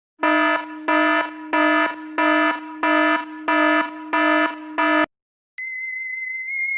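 Electronic alarm buzzer sounding in eight loud, evenly spaced buzzing pulses, about one and a half a second, then cutting off. About half a second later a steady high electronic tone starts.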